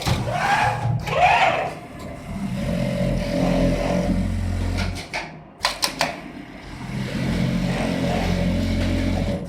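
Automatic patch pocket sewing machine cycling: a steady motor run of about two seconds while it stitches, a few sharp clicks near the middle, then a second steady run.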